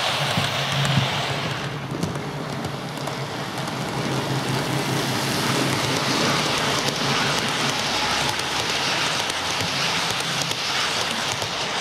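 OO-scale model trains running past close by: a steady rushing, crackling rattle of wheels on the track with a low motor hum, first an HST set, then, after about two seconds, a train of hopper wagons.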